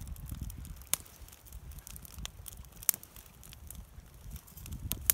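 Small campfire of birch bark and split kindling catching, with a few scattered sharp crackles and pops, the loudest about three seconds in.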